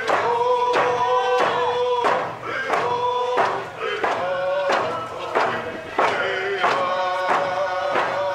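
A group of voices singing a chant together over a steady drumbeat, a little under two beats a second, with long held notes.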